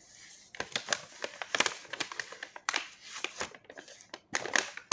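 Small paper cut-outs being picked through and shuffled by hand: irregular crisp crinkling and rustling with light clicks, a little louder about a second and a half in and near the end.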